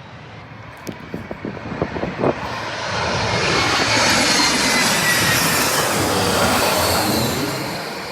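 Jet airliner passing low overhead, its engine noise swelling to a loud roar and then fading, with a whine that falls in pitch as it goes by. Wind buffets the microphone early on.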